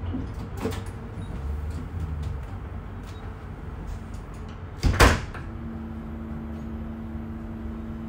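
Inside a Bombardier Flexity Berlin tram: a low rumble, then one loud, short thud about five seconds in, followed by a steady hum.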